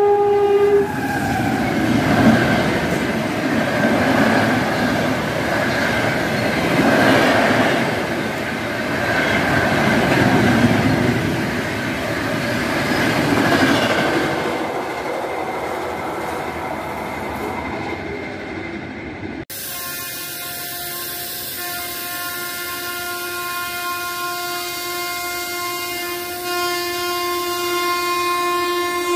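A train horn stops just after the start. A rushing train noise follows, swelling and fading every few seconds. About two-thirds through the sound cuts abruptly to the Purushottam SF Express locomotive's horn, blown steadily and getting louder near the end as the train approaches.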